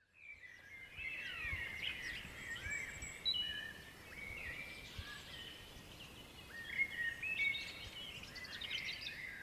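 Several songbirds singing at once: overlapping chirps, trills and quick whistled glides, fading in over the first second.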